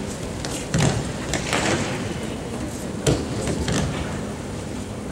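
Thuds of aikido breakfalls on tatami mats as a partner is thrown and lands, with bare feet scuffing and sliding across the mats. The loudest thuds come about a second in and about three seconds in, over the steady background noise of a large hall.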